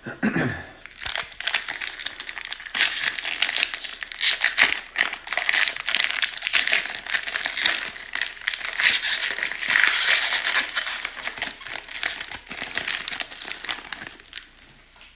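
Foil wrapper of a baseball card pack being crinkled and handled as it is opened, a continuous crackly rustling that fades out near the end. A short low bump right at the start.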